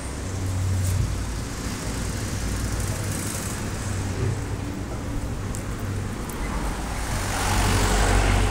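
Street traffic noise: cars running along the road in a steady low rumble, swelling louder near the end.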